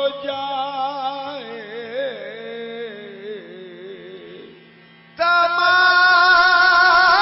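Qawwali: a male singer draws out a slow, ornamented solo vocal line over a steady low drone, fading away about four and a half seconds in. After a short lull, louder singing comes in suddenly over sustained harmonium-like chords near the end.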